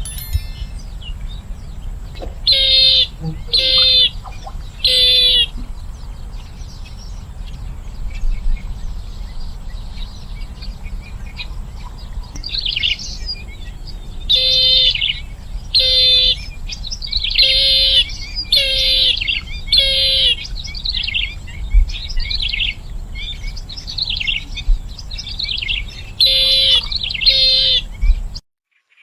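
Bronze-winged jacana calling: short, rapidly pulsed calls of about half a second each. Three come in a row near the start, a longer run of about seven in the middle, and two more near the end, before the sound cuts off suddenly.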